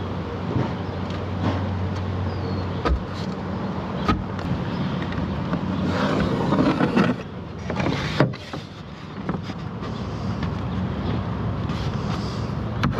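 A steady low mechanical hum, like a motor or engine running, with a few sharp clicks and knocks and a short burst of rustling handling noise about six to seven seconds in.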